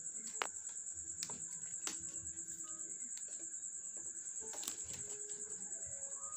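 A cricket chirping steadily in a fast, even pulse, with a few light clicks of plastic craft wire strands as they are pulled and knotted by hand.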